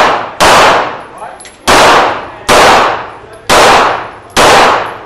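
Five pistol shots at an uneven pace, each followed by a long echo off the walls of an indoor range.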